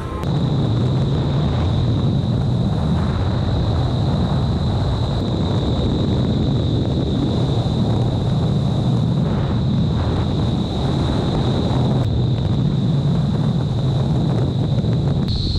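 Vertical wind tunnel for indoor skydiving: a loud, steady rush of air blowing up through the flight chamber, buffeting the microphone, with a constant high-pitched whine over it.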